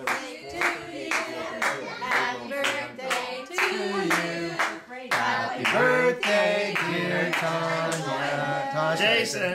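A small group of people singing together while clapping in time, about two claps a second.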